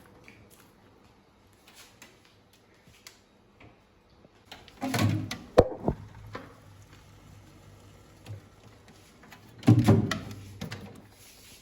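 Scattered clicks and knocks as a new refrigerator is handled and set in place, with a louder bump about five seconds in, a sharp click just after it, and another bump near the ten-second mark.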